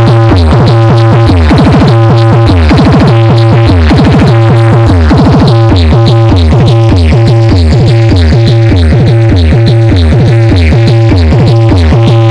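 Loud electronic dance music with a heavy bass and a steady drum-machine beat, played on a DJ sound system.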